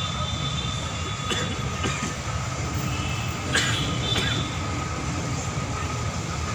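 Steady low rumble of engines and road noise in slow, congested city traffic, with a thin steady whine over it and a few short squeaks or clicks, the sharpest about three and a half seconds in.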